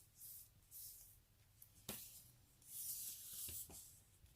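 Faint handling sounds as a pearl necklace is laid out and measured: soft rustles and a light click about two seconds in, with a softer click later.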